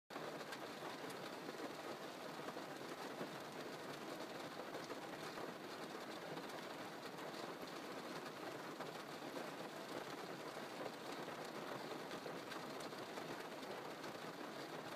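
Rain falling fairly hard on a car's roof and windows, heard from inside the car: a steady, even patter of many small drop hits.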